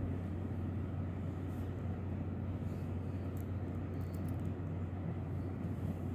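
Steady low hum with an even background rush, and a few faint light clicks.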